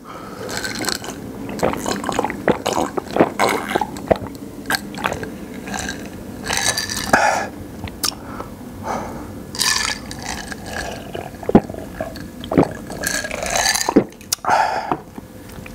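Close-miked drinking from a plastic cup: gulps and swallows, with wet lip and mouth clicks between sips and a few louder breathy bursts.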